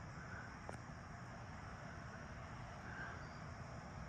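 Late-summer dawn ambience: a steady chorus of crickets and other insects over a low rumble, with a few soft chirps.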